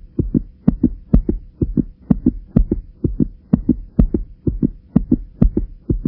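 Heartbeat sound effect: a steady, fast beat of paired low thumps, about two beats a second.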